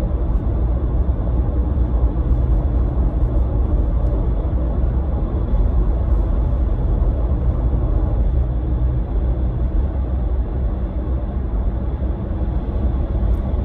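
Steady low rumble of a car in motion, engine and tyre noise heard from inside the cabin.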